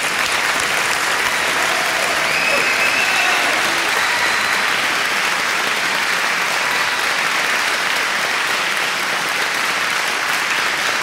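Large audience applauding steadily, a dense continuous clapping.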